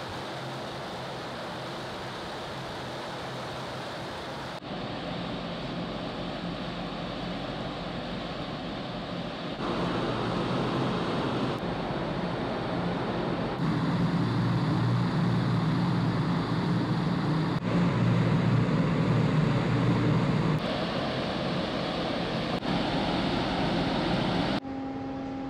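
Large car ferry's engines and funnel exhaust running with a steady low hum, mixed with wind and water noise on the open deck. The level jumps at several cuts, and the hum is strongest for several seconds just past the middle.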